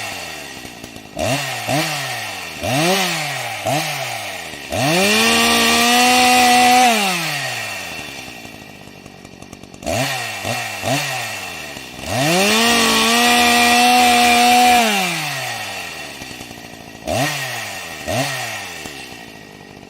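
Chainsaw engine revved in short throttle blips, then held at high revs for a couple of seconds and let fall back; the run of blips and a held rev happens twice, with two more quick blips near the end.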